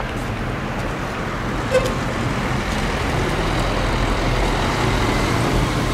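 Car driving along a road: a steady run of engine and road noise.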